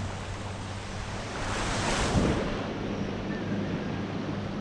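Surf washing on the shore, one wave swelling up about two seconds in and falling away, with wind buffeting the microphone and a faint low hum underneath.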